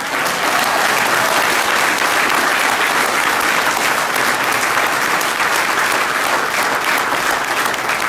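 An audience applauding: dense clapping that starts all at once and eases slightly near the end.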